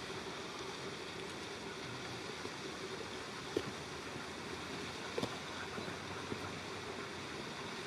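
Narrow-gauge steam train hauled by NG G16 Garratt locomotive No. 87 running in the distance: a steady, fairly faint rumbling hiss with a few sharp clicks a little past the middle.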